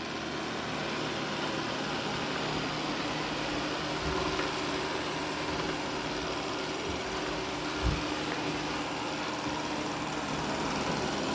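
Shark IQ RV1000S robot vacuum running steadily with a constant motor and fan hum, with a soft low thump about eight seconds in.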